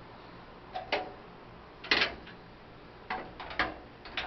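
A few sharp clicks and knocks of metal camp-stove parts being handled and fitted, the loudest about two seconds in and a quick cluster near the end.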